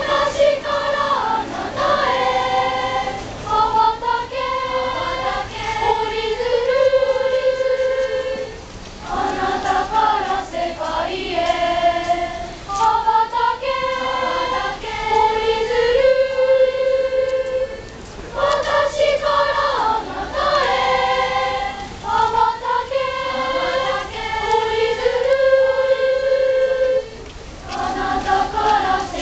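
A large group of schoolchildren singing a song together as a choir, in long phrases with brief pauses for breath about every nine seconds.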